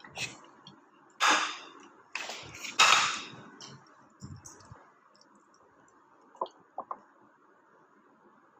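Several loud, breathy huffs and slurping mouth noises from two people eating popcorn off plates with their mouths, no hands, in the first few seconds. Then it goes quiet apart from a few short clicks.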